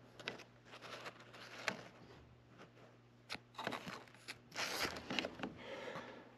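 Hands working close around an air handler's expansion valve fittings during a bubble-solution leak check: irregular clicks and rustling, with a couple of short hissing bursts a little past the middle.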